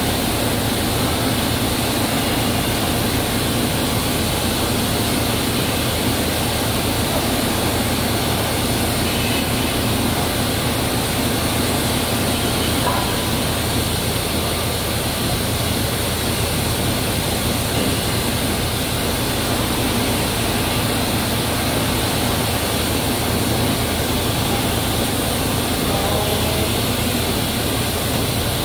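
Bakery dough-handling machinery running: a dough divider and an inclined dough-climbing conveyor. The noise is steady and even, without pauses.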